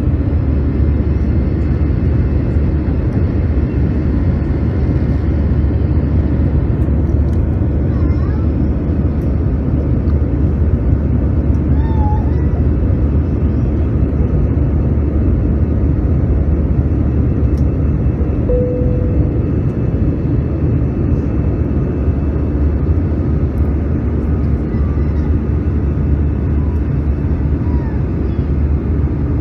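Airbus A320-200 cabin noise from a window seat over the wing: steady, deep engine and airflow noise with the aircraft climbing.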